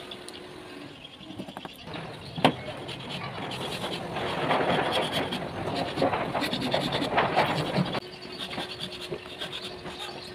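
Hand file rasping along the edge of a steel sickle blade cut from a motorcycle brake disc, in repeated strokes that are loudest in the middle and fade in the last couple of seconds. A single sharp knock comes a little before the filing starts.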